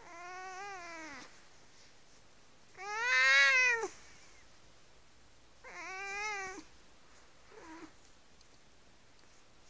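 Cat meowing three times, each call about a second long and rising then falling in pitch, the second one loudest, followed by a faint short fourth call.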